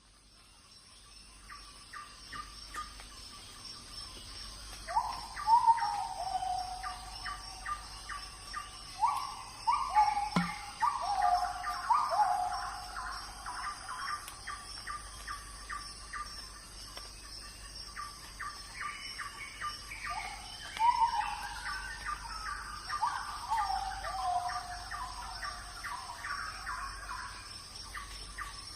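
Forest wildlife chorus: a steady high insect trill under rapid repeated chirps, with groups of short, falling animal calls coming in bursts several times.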